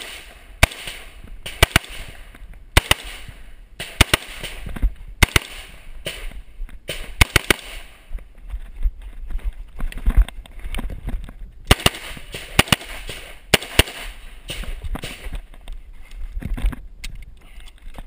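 AR-15 carbine fired at close range, a string of sharp, loud shots, often in quick pairs or threes about half a second to a second apart. The shooting pauses for about three seconds partway through, then resumes.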